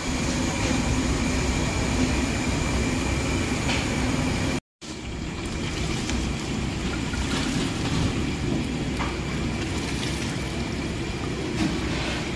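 Diced vegetables deep-frying in a large wok of hot oil: a steady, dense sizzle over a low rumble. It breaks off for a moment about a third of the way through.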